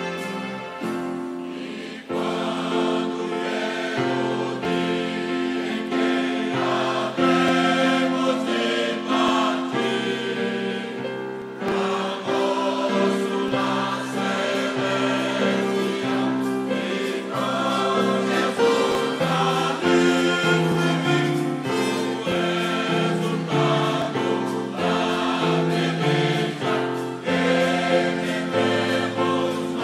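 Choir singing a gospel song in parts, with low held notes that change every second or two.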